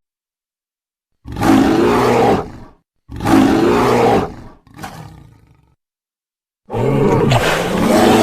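A person roaring with the voice in imitation of a big cat: three long, rough roars and a shorter one that fades out, with silence between them.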